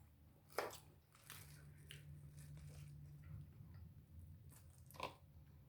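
Faint eating sounds: chewing with a few short, sharp crunches, about half a second in and again near the end, and a low hum for about two seconds in the middle.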